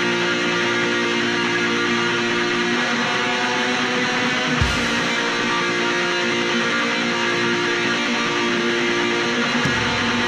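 Raw black metal music: a dense, steady wall of distorted electric guitar, with a low thump about halfway through.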